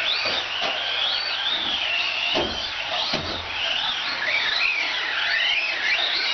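Electric motors of 1/18-scale RC short course trucks, Team Associated SC18, whining as they race, the pitch rising and falling with the throttle. Two short knocks come about two and a half and three seconds in.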